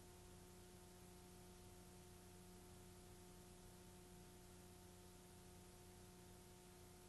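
Near silence: a faint, steady hum of several low tones under an even hiss.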